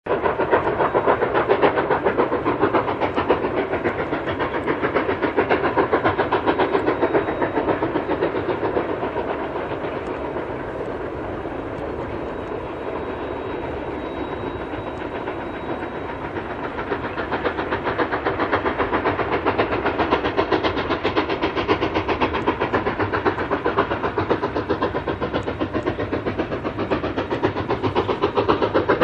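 Narrow-gauge steam train running with a fast, even rhythm of beats; it eases off for several seconds around the middle and builds again toward the end.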